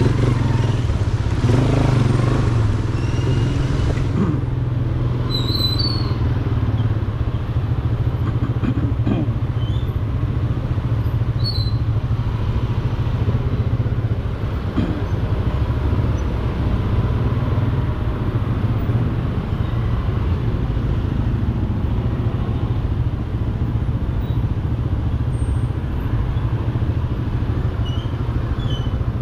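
Motorcycle engine running at low speed in slow stop-and-go traffic, a steady low drone, with the engines of surrounding scooters and cars around it. A few brief high squeaks come through now and then.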